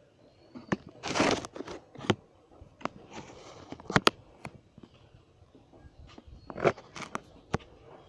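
Irregular sharp clicks and three short rustles, about ten clicks in all, typical of a phone being handled and repositioned while filming.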